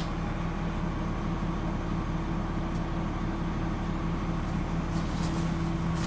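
1998 Blue Bird TC2000 school bus's rear-mounted engine idling with a steady low hum, heard from inside the passenger cabin.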